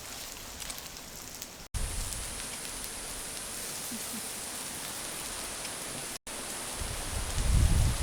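Steady rain-like hiss, broken twice by brief dropouts, with a loud low rumble swelling near the end.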